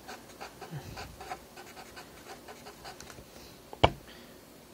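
Marker pen writing on paper: a run of short scratchy strokes, then one sharp tap just before the end, the loudest sound here.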